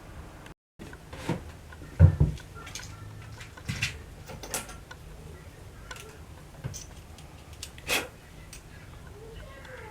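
Irregular clinks and knocks of metal tools and parts being handled during clamp repair, with a heavier knock about two seconds in and another near eight seconds.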